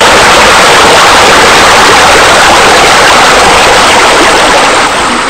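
Loud, steady rush of water, easing off near the end.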